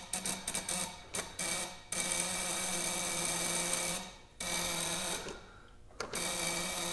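Trembler (buzz) ignition coil on a 1901 Curved Dash Oldsmobile buzzing. It stutters on and off for the first two seconds, then buzzes steadily, dropping out briefly about four seconds in and again near the end. A poor electrical connection is making it cut in and out.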